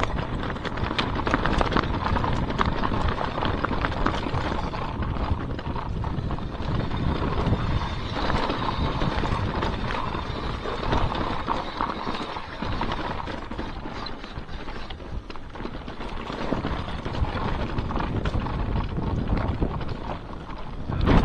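Mountain bike riding fast down a rough dirt trail: the bike rattles and knocks continually over the bumps, with tyre noise and wind buffeting the microphone.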